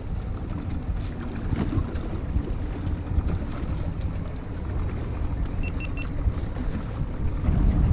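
Wind buffeting the microphone over the wash of a choppy sea around a small fishing boat, a steady low rumble. Three short high beeps of the same pitch sound about six seconds in.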